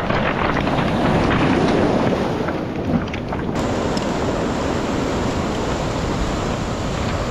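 Surf breaking and washing over a cobble beach, with steady wind buffeting the microphone.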